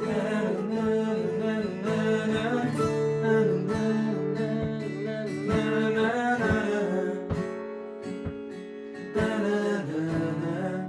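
Acoustic guitar strumming chords, with a voice singing a wordless melody over it.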